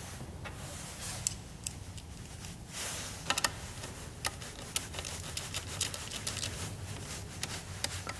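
Scattered light clicks and ticks of a hand nut driver and small nuts being threaded onto the studs of an ice auger engine's air cleaner back plate, with a brief cluster of clicks about three seconds in.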